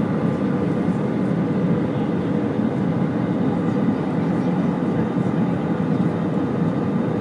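Steady cabin roar inside an Airbus A320 airliner during landing: engine and airflow noise heard from a passenger seat.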